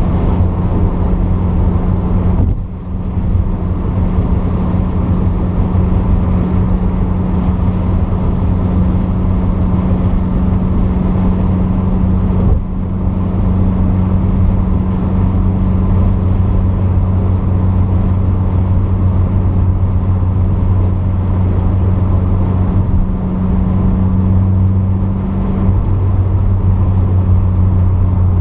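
Porsche 944's 2.5-litre four-cylinder engine pulling steadily while the car drives at an even pace, with a deep, constant note. About three seconds in the sound briefly dips, and a short click comes around the middle.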